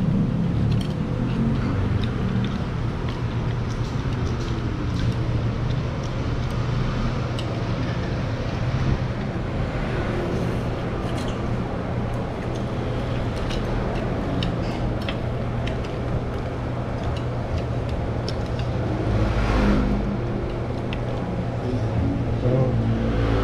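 Steady road traffic noise with a low hum, and scattered light clicks of chopsticks and spoons against bowls.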